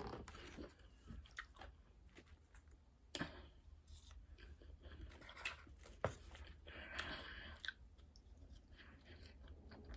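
A person chewing food with the mouth close to the microphone: faint, scattered crunches and wet mouth clicks over a steady low hum.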